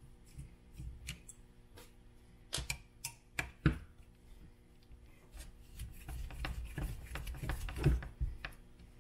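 Clicks and taps of a small hex driver and plastic RC-truck parts being handled while screws are taken out. A few sharp single clicks come first, then a busier run of rattling clicks in the second half.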